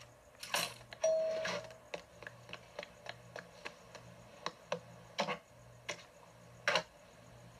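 A short single-tone chime about a second in, like a shop door's entry bell, then a run of light, irregular clicks. Two louder clicks come in the second half.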